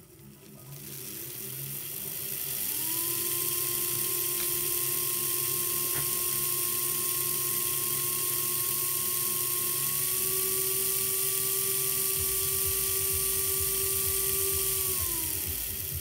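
The small electric motor and gearing of a vintage Märklin 3005 H0 steam locomotive running on test rollers. A whine climbs in pitch over the first few seconds as it speeds up, holds steady with a slight rise about ten seconds in, then drops away near the end as the locomotive slows.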